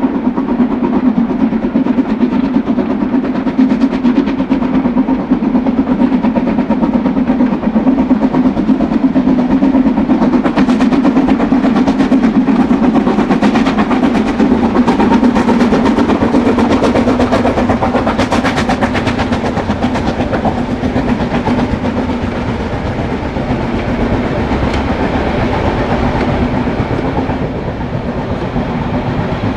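Harzquerbahn narrow-gauge train running along the track, its wheels clicking over the rail joints. The clicking is densest in the middle and eases off near the end.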